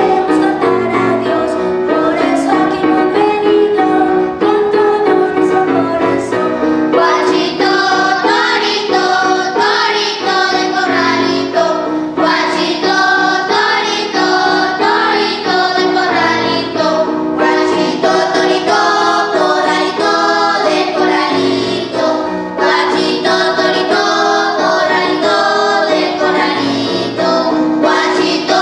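Children's choir singing together with women's voices.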